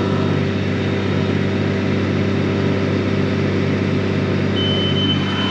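Tractor engine running steadily under load while pulling a round baler through hay, with a low regular pulsing about twice a second. A steady high beep comes in near the end.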